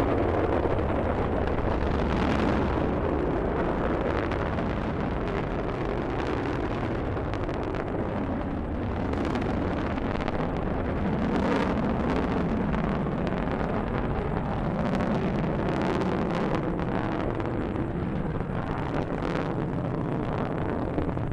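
Delta rocket's engines during liftoff and climb: a steady, dense launch rumble with crackling running through it.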